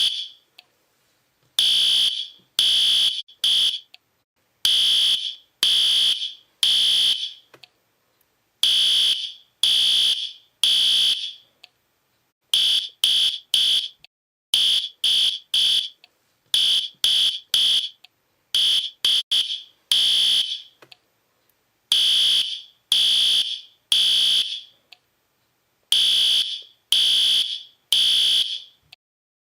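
Fire alarm sounding in repeated harsh, high-pitched blasts, mostly in groups of three with short pauses between the groups; a few quicker, shorter blasts come around the middle.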